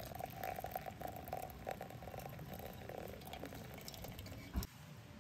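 Hot water poured in a thin stream from a kettle onto coffee grounds in a drip bag set on a metal mug, a steady trickling. A brief thump near the end cuts it off.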